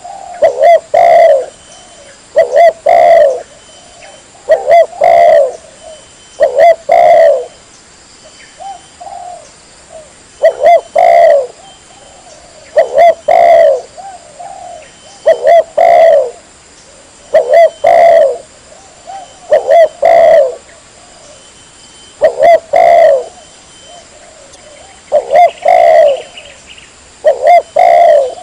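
Spotted dove (tekukur) cooing: loud phrases of two or three low coos, repeated about every two seconds. A lure-call recording of the kind played to draw wild doves in.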